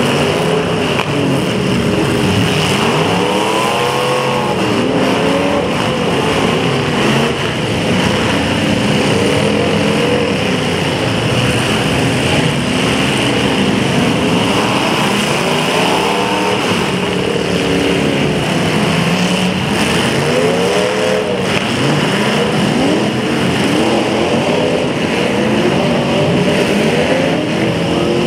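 Several demolition derby cars' engines revving up and down over one another, loud and continuous, with pitches repeatedly climbing and falling back every couple of seconds.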